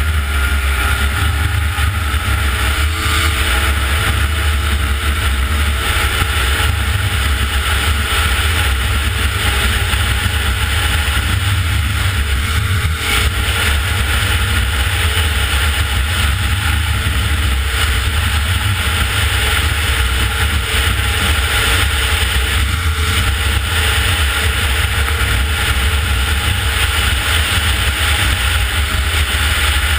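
Snowmobile engine running steadily at speed, its pitch rising slightly at first and then holding, over a heavy low rumble.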